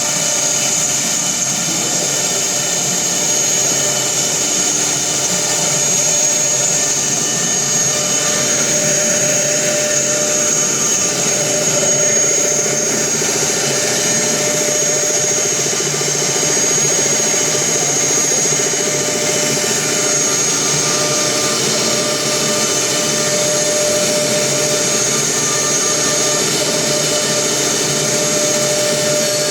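CNC router running steadily: the spindle motor gives a constant high-pitched whine over a continuous mechanical noise.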